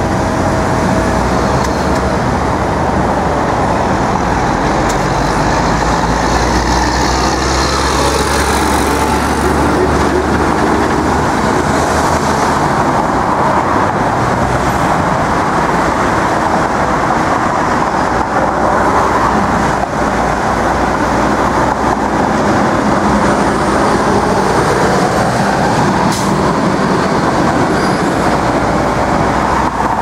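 Loud, steady traffic noise of a busy city street, with heavy vehicles running and passing; a deep engine rumble in about the first third.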